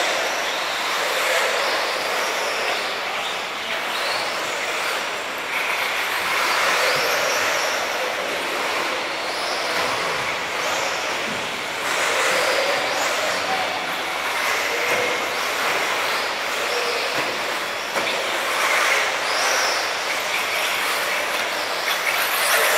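Several 1/8-scale electric RC off-road buggies, among them a Tekno EB48, running laps on a dirt track. Their motors and drivetrains whine, rising and falling again and again as the cars accelerate and brake.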